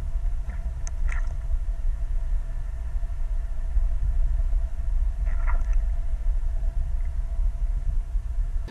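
Steady low underwater rumble picked up by an underwater camera, with a faint constant hum and a few faint clicks about a second in and again past five seconds.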